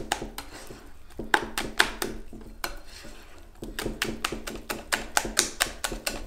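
Wire whisk beating a thick egg-and-flour batter in a glass bowl, the wires clicking rapidly against the glass several times a second, pausing briefly about a second in and again for about a second around three seconds.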